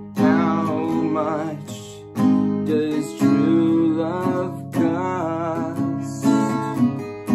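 Acoustic guitar with a capo, strummed in separate strokes about every second or so, each chord ringing out and fading before the next. A man's voice sings a wavering melody over it.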